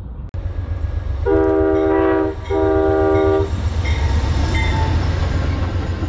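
Locomotive horn sounding two blasts of about a second each, separated by a short break, over the steady low rumble of a passing train.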